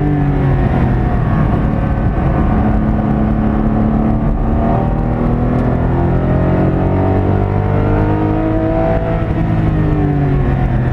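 Porsche 718 Cayman GT4's flat-six engine at speed on track, heard from inside the cabin over tyre and road rumble. Its pitch drops right at the start, climbs steadily through the middle, then eases down near the end.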